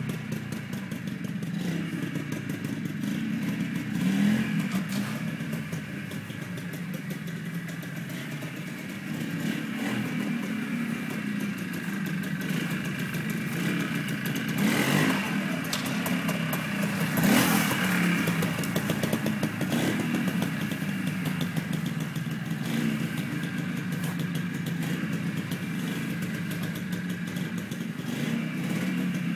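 Trials motorcycle engine running at low revs as it is ridden slowly, with a few short throttle blips.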